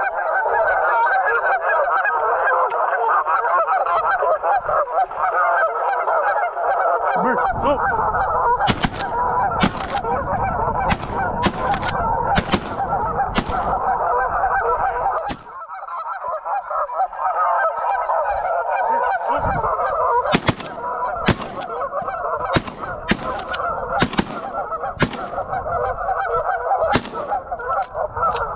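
A large flock of Canada geese honking in a dense, continuous chorus. Wind rumbles on the microphone at times, and there are scattered sharp clicks.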